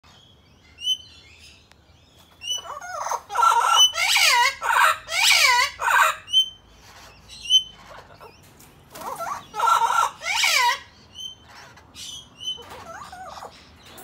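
Parrots calling: two bouts of loud, wavering squawks, the first starting about two and a half seconds in and the second around nine seconds, with short high chirps scattered throughout.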